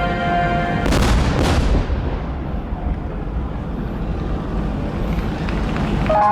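Two fireworks shells bursting about a second in, half a second apart, each followed by a long fading tail of echo and crackle. Music from the show's loudspeakers holds a chord before them and starts again near the end.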